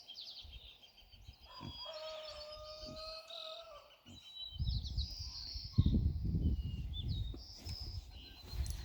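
A rooster crows once, a long held call lasting about two seconds, while small birds chirp. From about halfway through, a louder low rumbling noise takes over.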